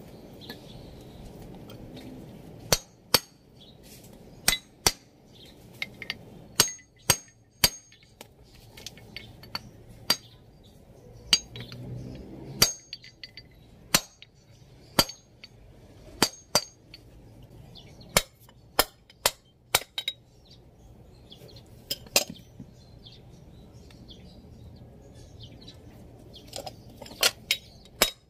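Sharp metal taps and clinks, irregular and about a second apart, with a quicker run near the end, as a tool is knocked against a BMW X5 E53 brake caliper to seat the greased piston in its bore.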